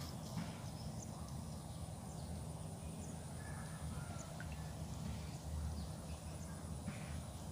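Outdoor background: a steady low rumble, such as wind on the microphone, with faint short chirps now and then, as from small birds.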